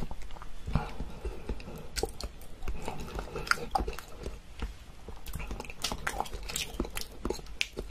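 A person chewing and biting food close to the microphone, with many irregular short clicks.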